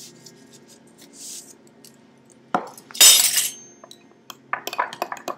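Cutlery clinking and scraping against a small bowl while stirring cornbread batter: a sharp tap about two and a half seconds in, a short scraping rush just after, then a quick run of clinks near the end.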